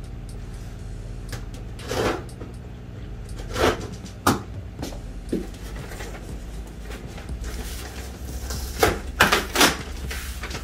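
Cardboard shipping box being opened by hand: a small blade slitting the packing tape and the cardboard scraping, in a string of short rasping strokes, with three close together near the end the loudest.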